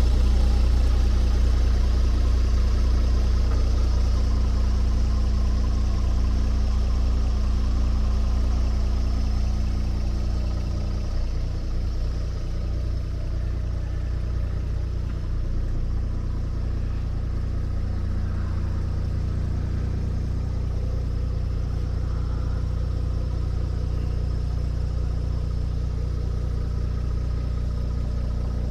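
Scania R450 tractor unit's 13-litre inline-six diesel idling steadily, heard from inside the cab; the hum eases a little about ten seconds in.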